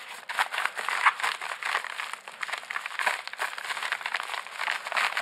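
A padded paper mailer crinkling and rustling as gloved hands grip, flex and pull at it: a dense, uneven run of crackles.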